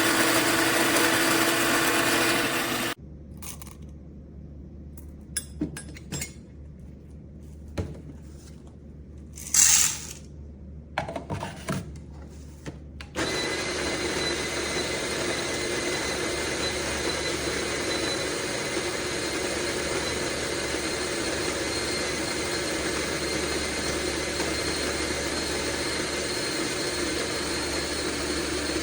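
Fellow Opus electric conical burr coffee grinder running, stopping about three seconds in. Then come scattered small clicks and knocks with one brief louder noise. The grinder starts again about halfway through and runs steadily until near the end.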